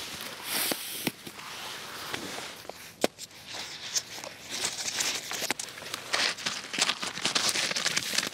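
Folding closed-cell foam sit pad pulled out of a backpack's mesh side pocket, then unfolded and pressed flat on a snowy log: rustling and crinkling with many small clicks, one sharper click about three seconds in.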